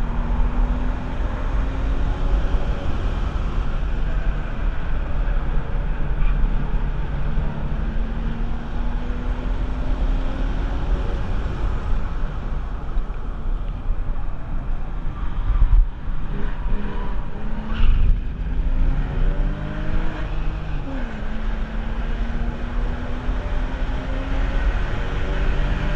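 Porsche 996 Carrera 4's 3.6-litre M96 flat-six pulling hard on track, its pitch climbing slowly through long accelerations, dropping and climbing again about two-thirds through, over a strong low rumble. Two sharp knocks about two seconds apart just past halfway.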